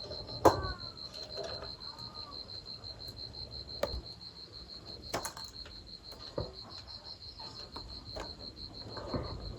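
An insect trilling steadily on one high pitch, with a few sharp knocks or clicks scattered through; the loudest knock comes about half a second in.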